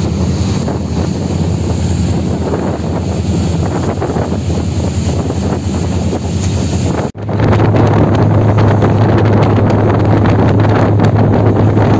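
Steady low drone of a catamaran ferry's engines under the rush of its wake and wind buffeting the microphone. The sound cuts off for an instant about seven seconds in, then carries on with a stronger engine hum and wind.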